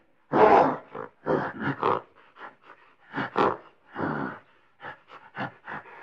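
Gorilla grunting and grumbling: a string of about a dozen short, rough grunts at uneven intervals, the longest and loudest one near the start.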